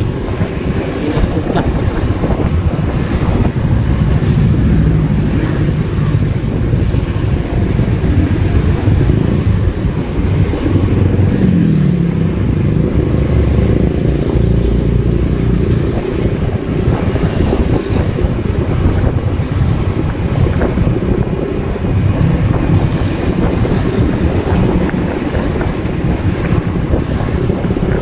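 Onboard sound of a motorcycle riding in slow, congested traffic: its engine running, with a steady low rumble of wind on the microphone and passing vehicles around it.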